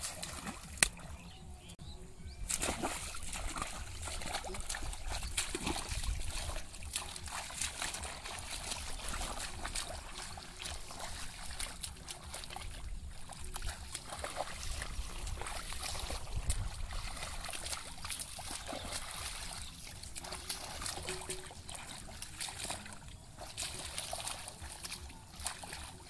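Shallow muddy water in a flooded rice paddy splashing and sloshing as people wade through it and grope in the mud with their hands, with many small irregular splashes and trickles. There is one sharp click about a second in.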